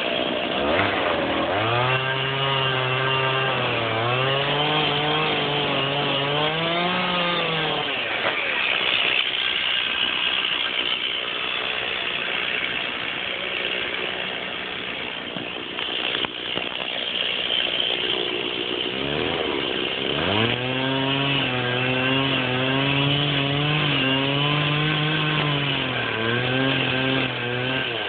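Stihl chainsaw cutting through the wooden legs of a stand twice, from about 2 to 8 seconds in and again from about 19 to 27 seconds, its engine pitch sagging and recovering under the load of each cut. Between the cuts it runs on without cutting.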